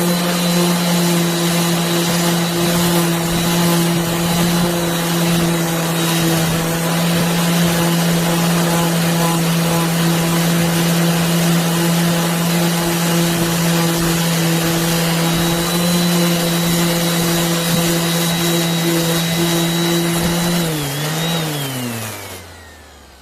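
DeWalt DWE6423 5-inch random orbit sander running at a steady speed. Near the end it is switched off, and the hum falls in pitch as it winds down.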